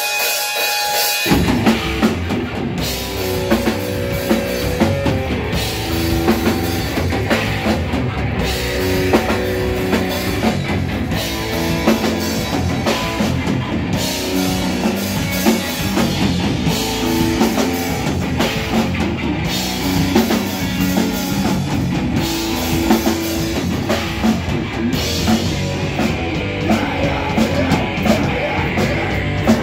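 Live heavy rock band playing: a pounding drum kit and electric guitars. The full band comes in about a second in.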